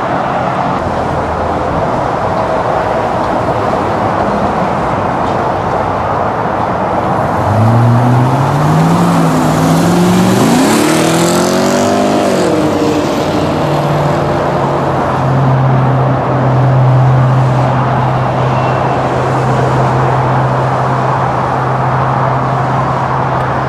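A 2003 Audi S8's V8 with a straight-piped exhaust (rear muffler removed) accelerating hard past, its engine note rising for several seconds. It then settles into a steady drone as the car drives away.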